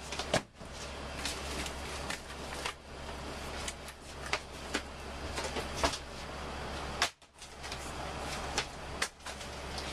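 Library books being handled and dropped into grey plastic sorting bins: about ten irregular knocks and thumps over a steady low hum.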